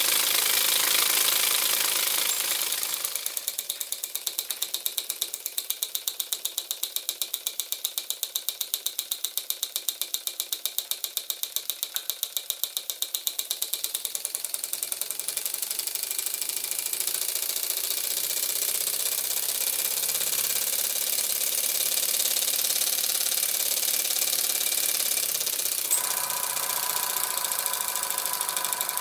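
Small homemade oscillating (wobbler) engine running on compressed air: a loud hiss of air for the first few seconds, then a fast, even run of clicks and puffs from each stroke of the rocking cylinder, which becomes smoother and steadier about halfway through.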